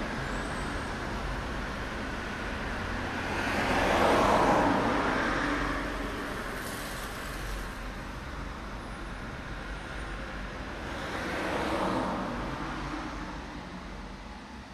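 Road traffic on the street outside: two vehicles pass by, the first and louder about four seconds in and another near twelve seconds, each a swelling and fading rush of tyre and engine noise over a steady low rumble.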